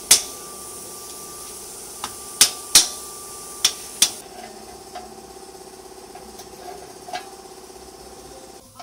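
Sharp metallic knocks and clinks of hand tools on the rear axle and swingarm as the rear wheel is fitted to the motorcycle frame: about six in the first four seconds, one left ringing.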